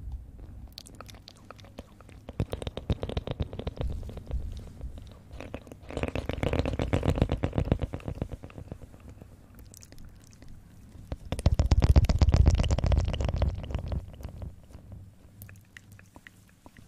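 Fingertips scratching and rubbing directly on a pair of pencil condenser microphones, a dense crackle with a deep rumble. It comes in three bursts of a few seconds each, with lighter scratching between them.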